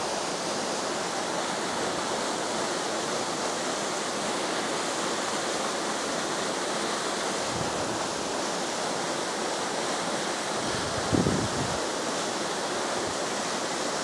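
A nearby waterfall giving a steady, unbroken rush of falling water. A brief low thump about eleven seconds in.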